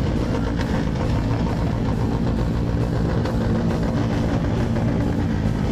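A large group of motorcycles running together at close range, many of them Royal Enfield 350 singles with loud modified exhausts, making a dense, steady, deep din that drowns out everything else.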